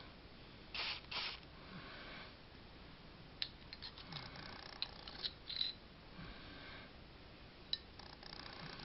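Quiet scrubbing and handling of a pistol with 000 steel wool while stripping its old bluing: two short scratchy bursts about a second in, then a run of small sharp metallic clicks around the middle and one more near the end as the steel parts are moved and worked.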